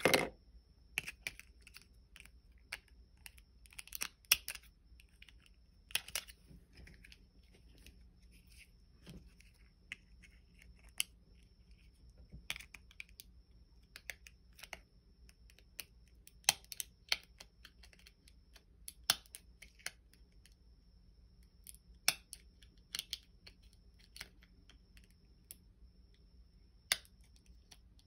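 Scattered small clicks and ticks at irregular intervals, a few louder ones near the start and every few seconds after, over a faint steady high-pitched whine.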